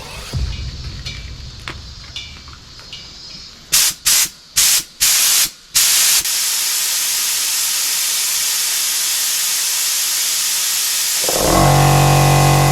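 Compressed air from an air compressor let out in several short hissing blasts, then one long continuous blast. Music comes in near the end.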